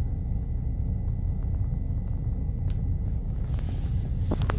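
Mitsubishi Pajero's engine idling, a steady low rumble. Near the end there is a short hiss and a couple of sharp scrapes.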